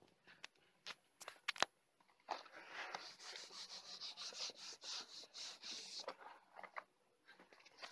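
Clothes iron pressed and slid back and forth over transfer paper on a cotton T-shirt: a rubbing, papery scraping that runs for about four seconds, starting about two seconds in. A few sharp clicks and taps come before it and a few more after.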